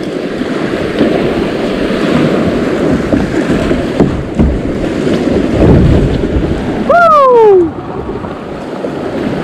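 Rushing whitewater of a creek rapid around a plastic sit-on-top kayak, with wind buffeting the microphone. About seven seconds in, a brief loud tone slides down in pitch.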